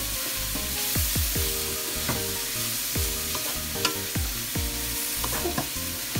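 Shredded cabbage, carrot and bell pepper sizzling in a non-stick wok as they are stir-fried, with a wooden spatula knocking and scraping against the pan now and then.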